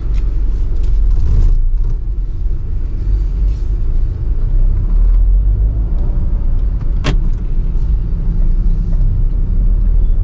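Car cabin noise while driving: a steady low rumble of road and engine, with a single sharp click about seven seconds in.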